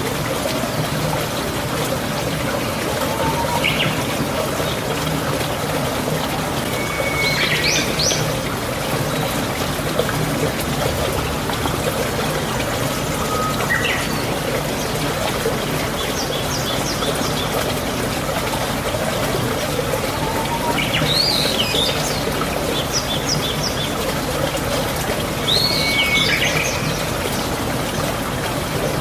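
Birds calling every few seconds, short whistled phrases, some sweeping up and down in pitch, over a steady trickle of running water.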